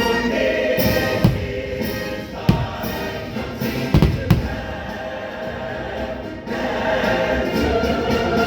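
Fireworks show soundtrack of a choir singing with an orchestra, with four sharp firework bangs in the first half.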